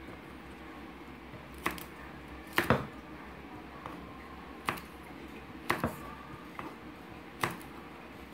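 Kitchen knife chopping green beans into short pieces on a wooden cutting board: about seven sharp knocks of the blade at uneven intervals, some in quick pairs.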